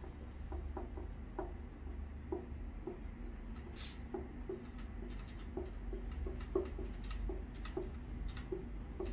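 Dry-erase marker writing on a whiteboard: a faint string of short, irregular taps and small squeaks, two or three a second.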